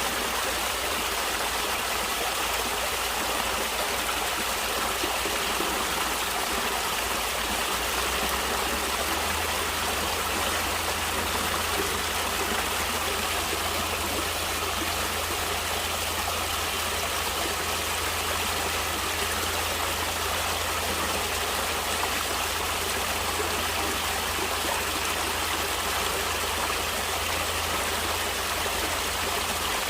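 Water of a stream flowing steadily, an even, unbroken rush.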